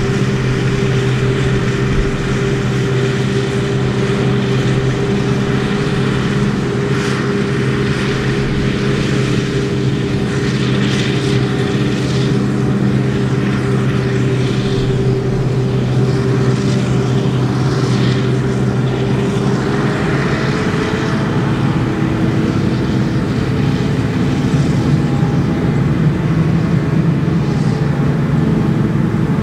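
Claas Jaguar 840 forage harvester chopping maize, a steady loud drone from the running machine with a hiss over it, alongside a tractor pulling the trailer. The drone shifts in pitch about two-thirds of the way through.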